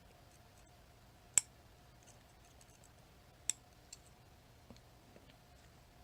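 Small metal clicks and taps from a Chicago Ace tubular lock being taken apart by hand. Two sharp clicks about two seconds apart are followed by a few fainter ticks, over a faint steady hum.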